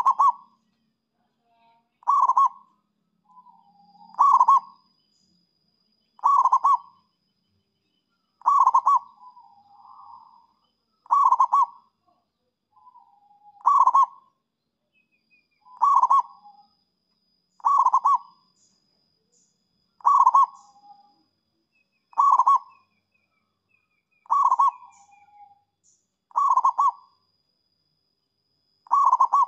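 Zebra dove (perkutut) cooing: the same short rolling call repeated about every two seconds. Each call is a loud burst followed by a softer trailing coo.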